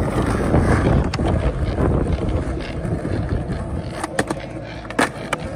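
Skateboard wheels rolling over asphalt and concrete with a steady rumble. Near the end come a few sharp clacks from the board.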